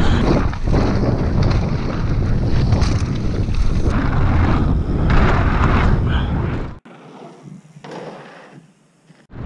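Mountain bike riding fast down a dirt trail and onto a wooden boardwalk, heard through the rider's camera: heavy wind buffeting on the microphone over the rush of the tyres. About seven seconds in it cuts suddenly to a much quieter rush.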